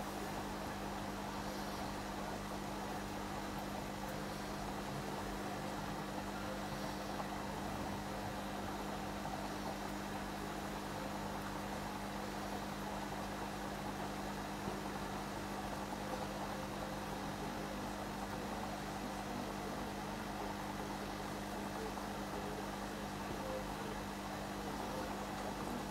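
Steady hum with an even hiss from aquarium air pumps and filters running, unchanging throughout.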